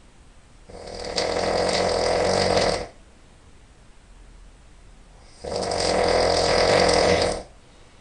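A person snoring loudly: two long snores, each about two seconds, a few seconds apart.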